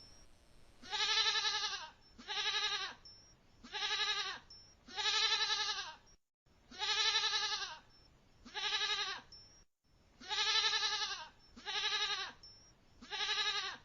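A goat bleating over and over, about nine calls. Each call lasts half a second to a second and has a quavering, trembling pitch.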